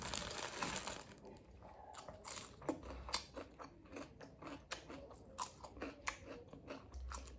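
Close-up chewing and biting as a person eats tandoori chicken, with irregular small crunches and clicks several times a second.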